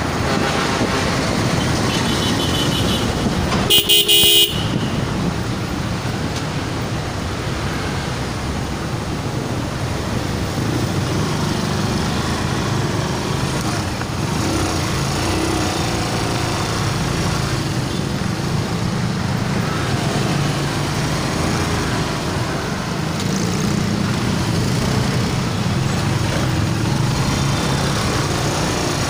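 Steady engine and road noise of riding through city traffic. A vehicle horn honks loudly for under a second about four seconds in.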